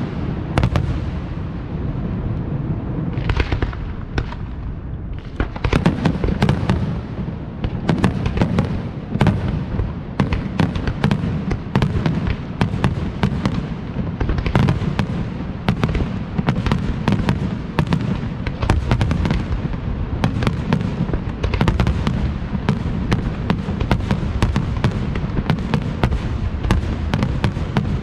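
Aerial firework shells bursting in a rapid, continuous barrage: a dense string of sharp bangs over a steady low rumble, thinning briefly about four seconds in.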